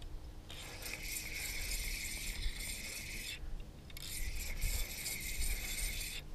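Spinning reel being cranked to bring in a hooked fish, its gears and ratchet clicking in a steady run that stops briefly right at the start and again about three and a half seconds in.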